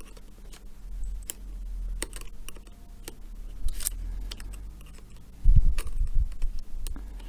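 Scattered small clicks and taps of parts and tools being handled on an opened laptop during reassembly, with a few dull bumps about five and a half seconds in.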